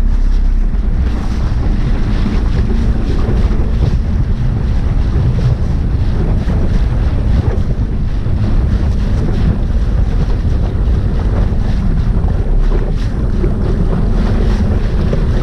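Small skiff running under way: an outboard motor's steady drone, water rushing past the hull, and heavy wind buffeting the microphone.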